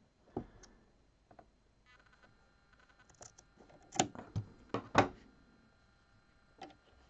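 Scissors snipping a strip of t-shirt jersey fabric: a handful of short, sharp snips, clustered about four to five seconds in, the last one the loudest, with light handling sounds in between.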